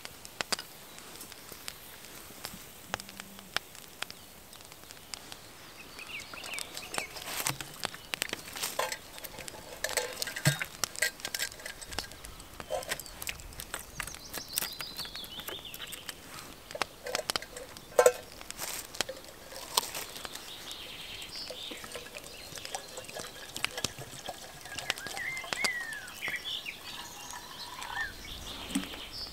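Twig fire crackling in a small folding titanium wood stove, with many irregular sharp snaps, while birds sing now and then. Near the end, water is poured into a small kettle on the stove.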